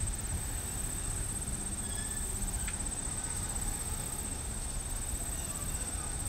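Freight cars rolling past with a low, steady rumble, under a constant high-pitched insect trill.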